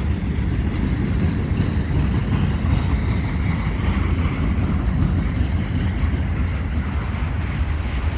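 Cars of a long, slow-moving mixed freight train rolling past: a steady, even low rumble of wheels on the rails.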